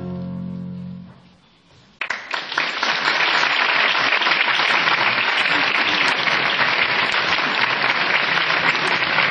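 The final held chord of a song fades out, then about two seconds in an audience breaks into loud, steady applause.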